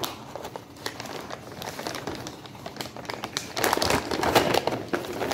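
Plastic bag of dried cranberries crinkling as it is handled and shaken, with a denser, louder stretch of crackling a little before the end.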